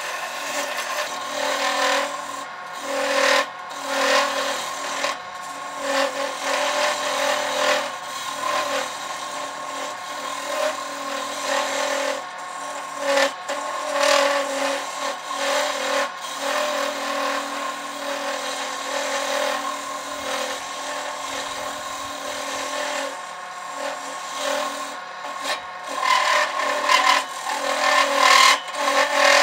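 Wood lathe turning a wooden baseball bat, with a tool or abrasive rubbing and rasping against the spinning wood in uneven passes over a steady machine hum.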